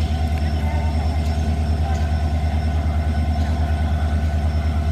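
WDP4 diesel locomotive's EMD 16-cylinder two-stroke engine running with a steady low hum and a fast, even throb.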